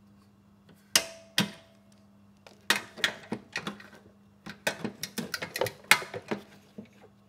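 Hand tools working a bolt on a lawn mower engine: sharp metal clicks and clinks from a ratchet wrench, irregular at first and coming faster from about halfway through.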